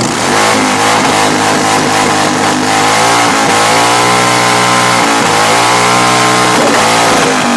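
A motorcycle engine held at high revs, its pitch dipping briefly and climbing back three times, as it is run hard to get a campfire going.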